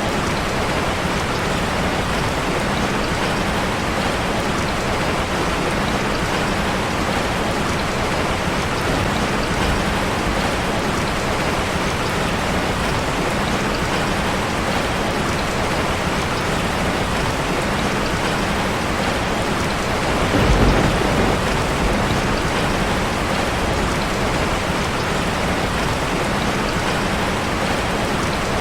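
Steady rain falling on a street, an even hiss without pause. About twenty seconds in, a brief low rumble swells and fades.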